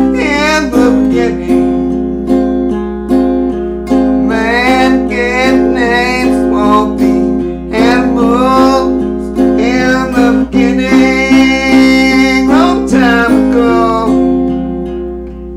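Acoustic guitar music: steady strumming under a melody line that slides and wavers in pitch, in phrases a few seconds long.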